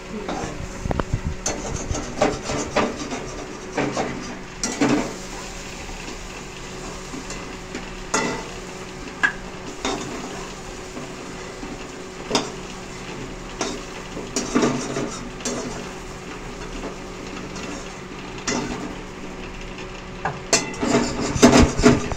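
Metal spatula scraping and clinking against a steel karahi as boiled potatoes are stirred and turned in it, in irregular scrapes and knocks that grow busier and louder near the end.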